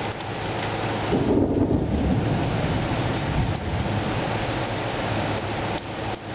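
Steady rain falling, with a roll of thunder that rumbles in about a second in and fades over the next couple of seconds.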